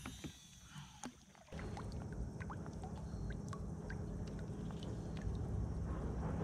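Low, steady rumble of a fishing kayak on the water, starting abruptly about a second and a half in, with scattered light clicks.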